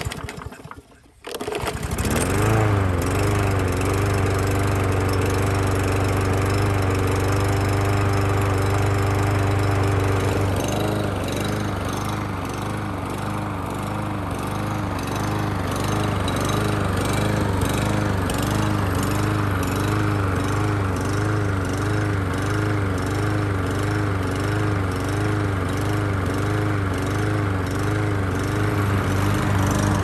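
Briggs & Stratton mower engine with a plastic carburetor pull-started, catching about a second and a half in and settling to a steady run. About ten seconds in, the speed begins rising and falling rhythmically: surging, which the owner puts down to a carburetor jet taken from a smaller, lean-running 300E engine.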